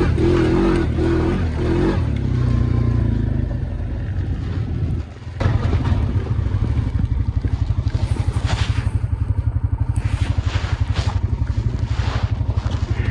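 ATV engine running hard at first and easing off, then, after a brief dip about five seconds in, running at a steady, evenly pulsing low beat, with some light clatter.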